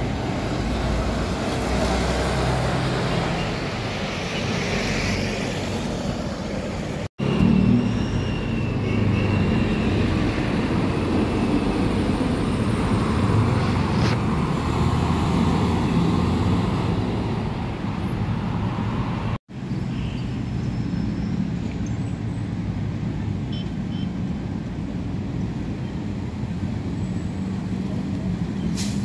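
Road traffic with trucks and cars passing: a steady mix of engine rumble and tyre noise. The sound drops out for an instant twice, about seven and nineteen seconds in.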